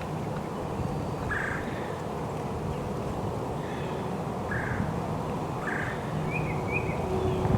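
Wild turkey gobbler gobbling three times, faint over a low background hiss, with a couple of short chirps near the end.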